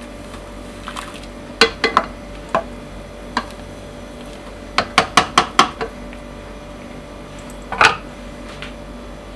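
A ladle knocking against the side of a cooking pot while stirring noodles in broth: a few scattered clinks, then a quick run of about six around five seconds in, and one more near the end, over a steady faint hum.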